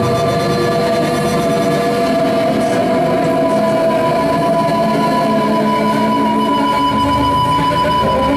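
Live droning electronic music from a keyboard synthesizer and an electric bass played through effects: a loud, dense wall of sustained tones with no beat. A higher held tone comes in about three and a half seconds in.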